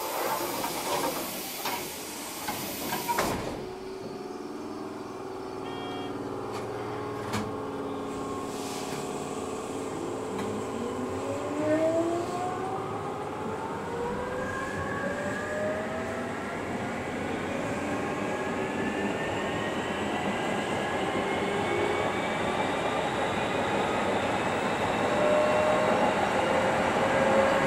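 Keikyu 800 series field-chopper electric train pulling away from a stop, heard from just behind the driver's cab. A loud hiss in the first few seconds cuts off suddenly. The whine of the traction motors and gears then rises steadily in pitch as the train picks up speed, over a growing rumble of wheels on rail.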